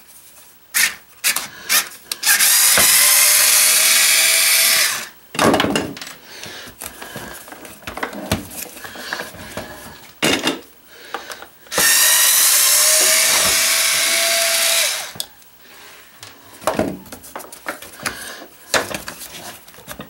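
A cordless electric screwdriver runs twice, each time for about three seconds, with a steady whine, as screws holding the vacuum hose connection are driven out. Plastic parts click and knock between the runs.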